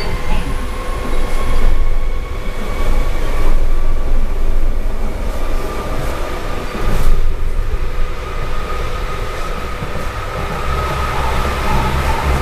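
Berlin U-Bahn Typ G subway car running, heard from inside the passenger compartment: a loud, continuous rumble of wheels on track with a thin steady hum above it and a louder jolt about seven seconds in.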